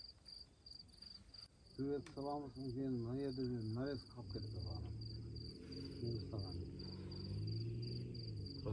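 Crickets chirping in a steady, even, high-pitched pulse, with people talking in low voices underneath.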